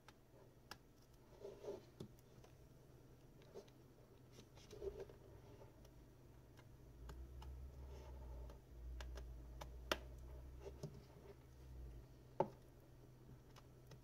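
Faint scraping and scattered small clicks of a plastic pry card being worked along the seam between a Lenovo S5 K520 phone's back cover and frame, with two sharper clicks in the second half.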